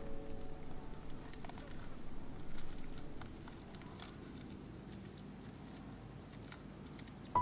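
Thin plastic wrap crinkling and crackling in scattered faint ticks as fingers peel it off a small piece of sesame brittle.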